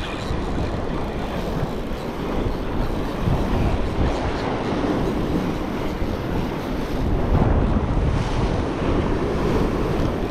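Wind buffeting the microphone in gusts, over ocean surf washing against the rocks below.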